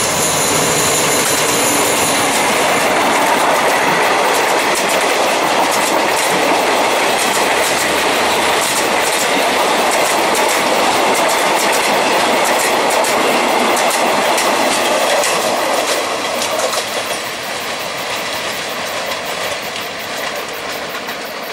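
A passenger train hauled by a diesel locomotive passing close by, loud: the locomotive goes by first, then the coaches, whose wheels click rhythmically over the rail joints above a steady rumble.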